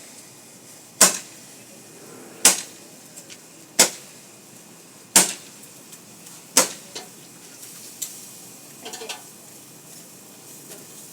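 Roman candle firing its shots: five sharp pops about a second and a half apart, then a fainter one.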